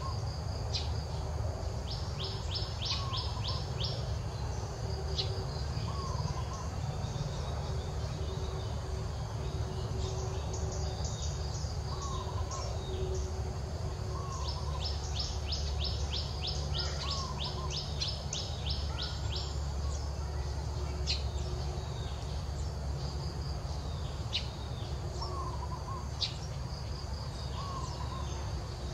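Birds calling outdoors: runs of rapid high chirps, about eight a second, lasting a few seconds each. Short lower calls repeat every couple of seconds. A steady low rumble runs underneath.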